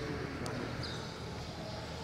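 A man reading aloud into a microphone. His amplified voice is faint here, broken by a pause, over a steady low hum.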